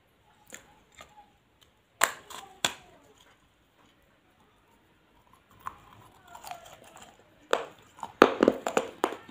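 Biting and chewing pieces of a terracotta clay bowl. Two sharp cracks come about two seconds in as a piece snaps off between the teeth, then crunching chews grow denser and louder toward the end.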